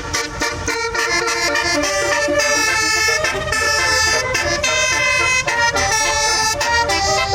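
A tour bus's basuri telolet horn playing a tune: a run of loud horn notes stepping from pitch to pitch, some short and some held for about a second.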